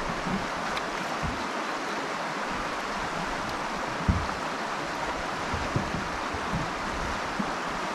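River water rushing steadily, with a few dull low thumps, the loudest about four seconds in.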